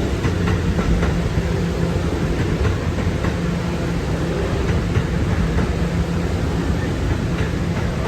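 New York City Subway A train running on the rails: a steady low hum from the train with rail noise and occasional faint clicks of the wheels.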